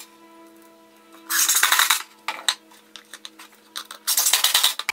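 Cordless drill driving screws through countersunk holes into hardwood runners, in two short bursts: one about a second and a half in and another near the end. A few light metallic clicks fall between them, over soft background music.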